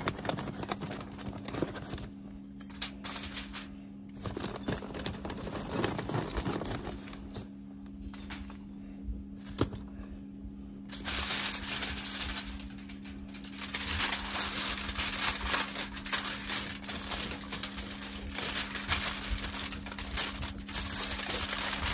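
Wood chips clicking onto a sheet of aluminum foil, then the foil crinkling as it is folded into a packet around them, growing denser about halfway through.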